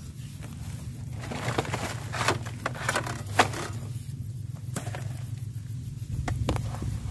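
Handling of a wrapped tube snake trap with a wire-mesh end: scraping and rustling with a run of sharp clicks, the loudest about three and a half seconds in, and a few more clicks later. A steady low hum runs underneath.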